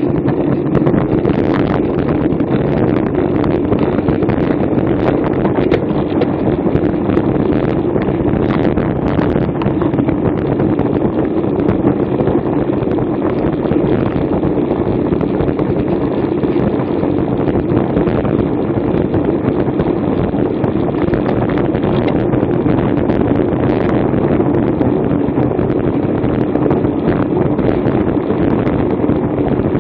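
Steady wind rushing over the microphone of a bicycle-mounted action camera while riding at race speed.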